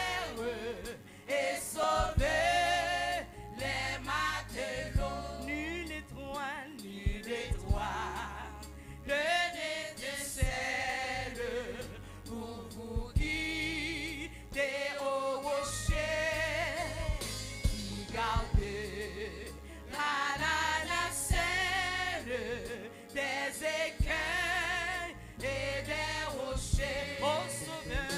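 Live gospel praise song: a woman lead singer and a group of backing singers on microphones, over a band with steady bass notes and a drum beat.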